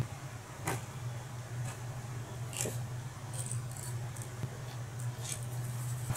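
A few faint, separate clicks and taps of small metal airsoft piston parts and a hex driver being handled as the piston head is screwed on. A steady low hum runs underneath and cuts off at the very end.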